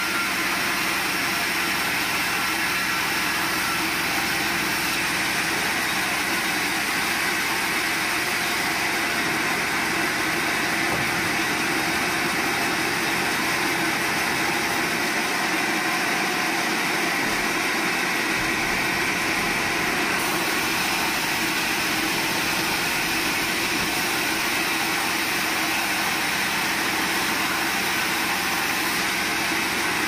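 A large sawmill band saw running steadily, its motor and blade making a continuous even machine noise.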